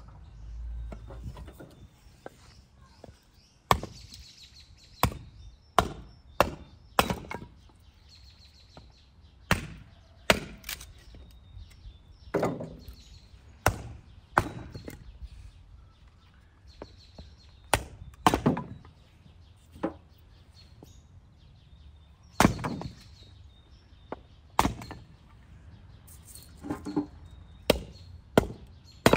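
Axe chopping firewood logs on a wooden chopping block: a series of sharp chops at uneven intervals, starting about four seconds in.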